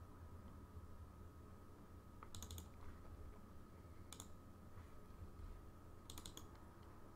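Faint computer mouse clicks over a low steady hum: a quick run of clicks about two seconds in, a single click around four seconds, and another quick run of clicks around six seconds.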